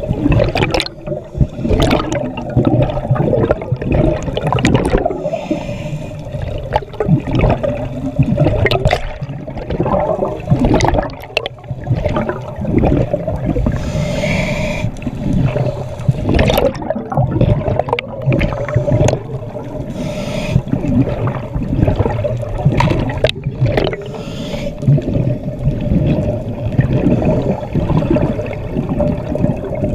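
Underwater sound heard through a camera's waterproof housing: scuba regulator exhaust bubbles gurgling and rushing, with frequent knocks and a steady low hum underneath.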